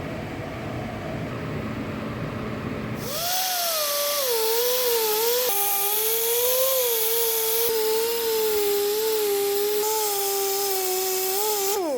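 A high-speed handheld power tool, such as a grinder, starts about three seconds in and runs with a whine whose pitch dips and wavers as it bears on the work, then winds down in a falling glide as it is switched off at the end. Before it starts there is a steady low shop noise.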